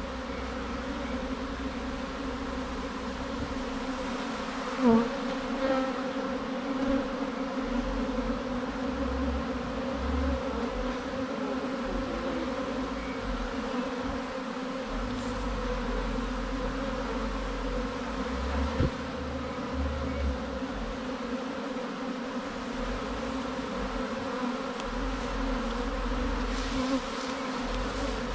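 Honeybee swarm humming, a dense steady drone of many wingbeats at one even pitch, with a couple of brief knocks.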